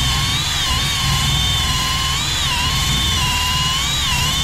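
Cordless drill spinning a wire wheel brush against a rusted steel panel: a steady motor whine that dips in pitch about three times as the brush bites into the rust.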